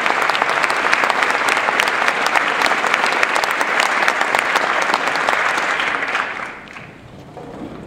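Concert audience applauding: dense clapping that dies away about six and a half seconds in.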